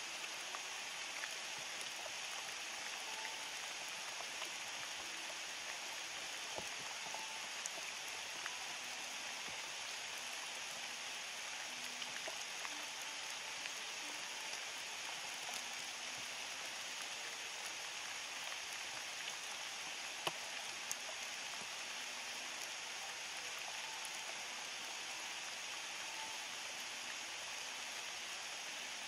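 Steady rain falling: an even hiss with scattered sharp taps of drops, one louder tap about two-thirds of the way through.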